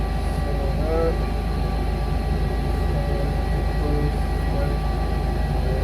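Steady low machine hum with a few faint steady whining tones over it, unchanging throughout. Faint voices can be heard in the background.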